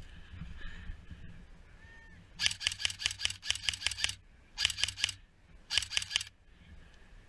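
Airsoft gun firing three bursts of rapid shots: a long burst of about a dozen shots, then two short bursts of about four.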